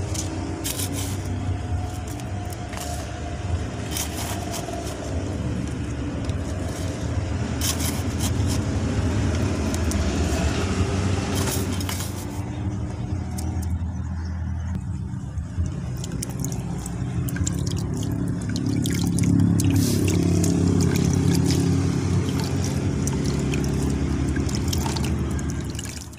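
Gritty potting mix of sand and rice husk scooped and poured into a plastic pot and pressed down around the roots, with scattered crackly rustles, over a steady low droning hum.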